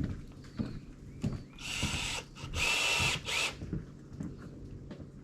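Cordless drill-driver backing screws out of a boat rail, running in three short bursts with a whine about two to three and a half seconds in. Light knocks come between the bursts.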